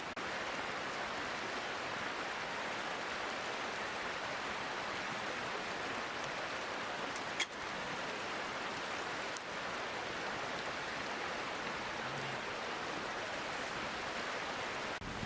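Mountain stream flowing steadily, a smooth even rush of water. A single sharp click comes about halfway through.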